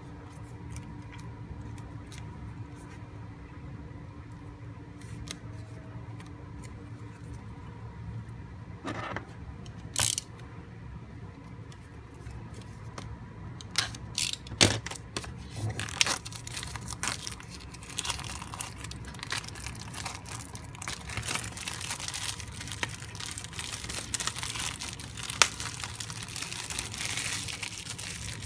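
Plastic shrink-wrap being cut and peeled off a photo frame. There is a sharp click about ten seconds in, then crinkling and crackling that grows denser through the second half, over a low steady hum.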